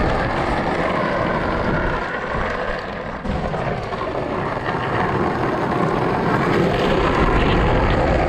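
Skateboard wheels rolling over rough asphalt, a loud steady rumbling noise that dips briefly about two to three seconds in, mixed with wind on the microphone.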